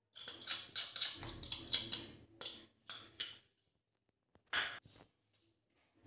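A spoon scraping and knocking against bowls and a steel mixer jar as curd is spooned in. There is a quick run of scrapes and taps for about three seconds, then two more strokes a second later.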